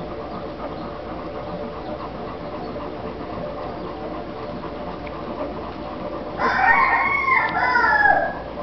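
A newborn puppy squealing loudly for about two seconds, in two wavering cries that fall in pitch at the end, over a steady background hum.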